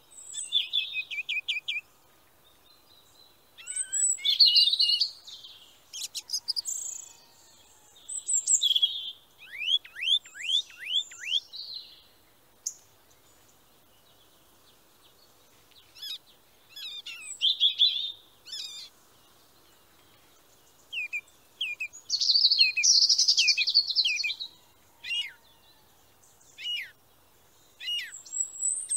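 Birdsong: phrases of high chirps and trills a few seconds long, with short pauses between them, including a quick run of falling whistled notes about ten seconds in.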